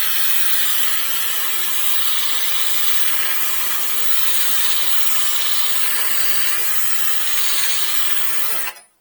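Angle grinder cutting through a steel coach screw, a steady hissing grind that cuts off near the end; the bolt is being shortened and comes off hot.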